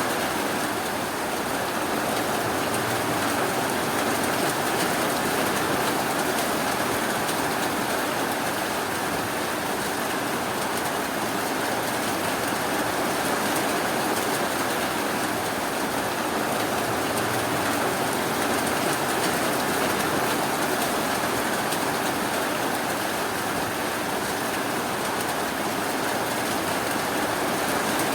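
Steady, continuous rainfall, an even hiss of rain on surfaces with no thunder or sudden sounds.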